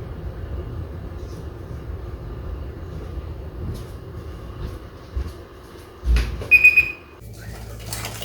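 Low steady kitchen rumble, then a thump about six seconds in and a short high electronic beep.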